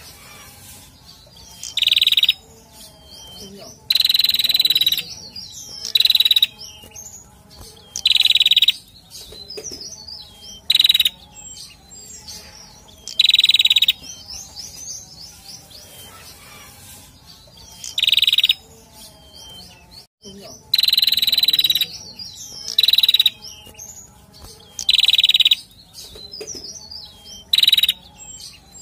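Male prenjak singing: short, loud, buzzy call phrases repeated about every two seconds, with quieter, rapid, high twittering between them.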